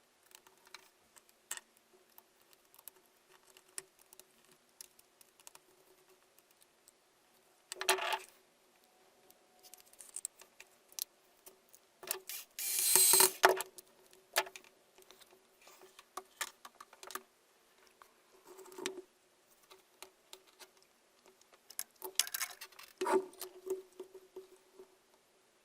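Small parts of an old hammer drill being handled and worked on: scattered light clicks and taps, with three short louder rustling or scraping bursts, the loudest about halfway through, over a faint steady hum.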